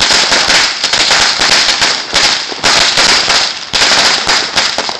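A 4,000-count string of firecrackers going off, a rapid, continuous crackle of small bangs.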